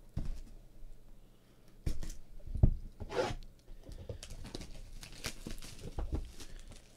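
A sealed box of Leaf Trinity baseball cards being opened by hand: a few knocks as it is handled, a tear about three seconds in, then crinkling of clear plastic wrapping.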